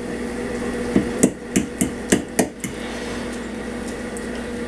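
Metal spoon clinking against a ceramic bowl of food: about seven sharp clicks in quick succession, starting about a second in, over a steady low hum.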